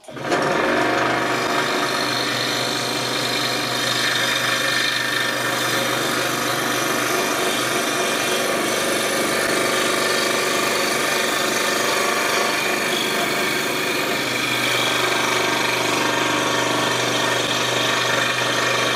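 Scroll saw starting up and running steadily, its reciprocating blade cutting curved half-circles into a strip of cherry hardwood.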